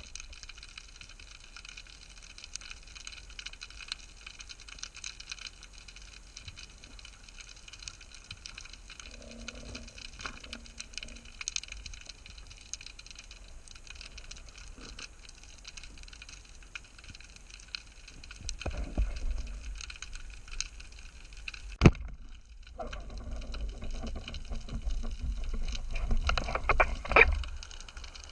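Underwater ambience picked up through a camera housing: a steady fine crackling of the rocky seabed, with swirling water rumbling in from about three-quarters of the way through. One sharp crack comes about 22 seconds in, followed by louder rumbling and clicking.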